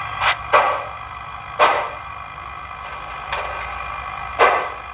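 Soundtraxx Blunami steam sound decoder in an HO Athearn Genesis 4-6-6-4 Challenger model, played through its speakers while the locomotive crawls at speed step one: a few sharp exhaust chuffs, roughly one a second and unevenly spaced, over a steady background hum.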